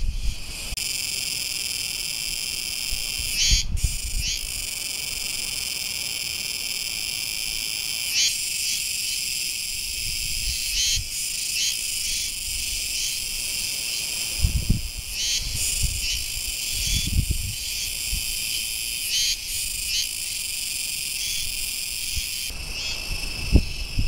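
Cicadas singing in the trees: a steady, high, buzzing drone made of several pitches at once, with a few short brighter pulses now and then.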